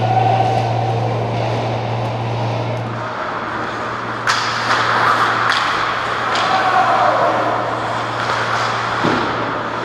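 Ice hockey play heard from beside the goal: skates scraping on the ice and hockey sticks and puck clacking, with a sharp clack about four seconds in, over a steady low hum that drops in level about three seconds in.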